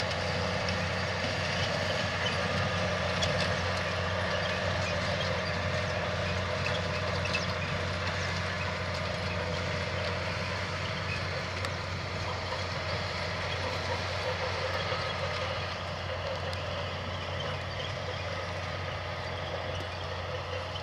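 New Holland T7000-series tractor's diesel engine running steadily as it pulls a loaded silage loader wagon over grass, a continuous engine hum with machinery noise over it, getting slightly quieter over the last few seconds.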